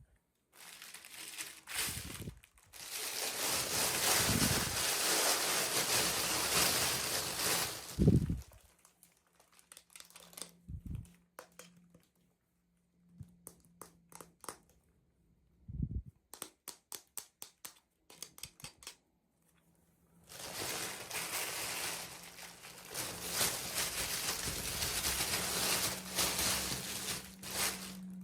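Plastic packaging crinkling and rustling as it is handled and opened, in two long stretches, with a few thumps and a run of quick clicks between them.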